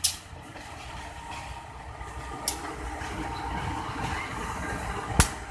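Diesel-electric locomotive of class CC 201 (GE U18C) running past slowly, its engine a steady rumble that grows a little as it comes closest. Three sharp clicks cut through it: at the start, about halfway, and the loudest near the end.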